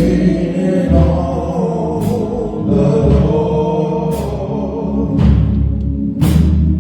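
Gospel song with singing over a steady bass and a recurring percussion hit.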